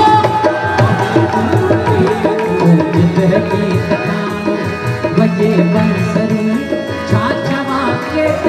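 Tabla drumming over held harmonium chords in live Sindhi folk music, with little singing.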